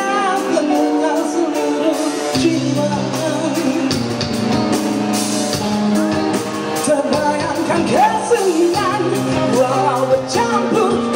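A band playing a pop-rock song live, with a lead singer and a steady bass line.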